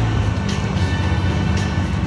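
Music playing over the steady low rumble of a school bus running.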